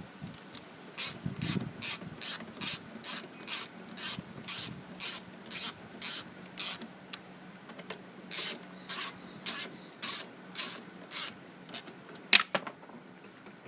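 Socket ratchet being worked back and forth to run down an 8 mm bolt on the mower's sheet metal: a short raspy clicking stroke about twice a second, with a brief pause partway through. A single sharp knock near the end, as the tool comes off or is set down.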